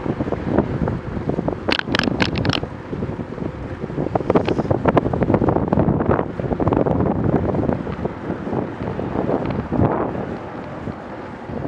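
Wind buffeting the action camera's microphone while it moves along a street: a steady, gusting rumble, with a quick run of sharp clicks about two seconds in.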